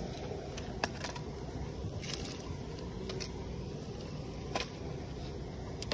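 Small fire of dry twigs crackling, with a few sharp pops and snaps while sticks are pushed into it, over a steady low rumble.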